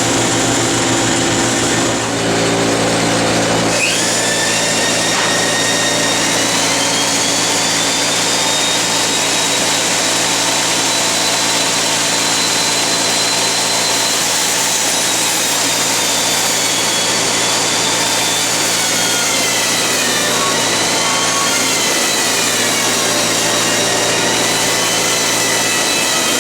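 Stationary woodworking machine running steadily while hard maple is milled through it. From about four seconds in, high whining tones come in over the steady machine noise and drift up and down in pitch.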